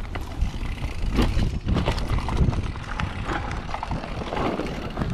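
Mountain bike riding over a rough dirt trail: wind rumbling on the microphone, with irregular rattling and knocking from the bike over bumps.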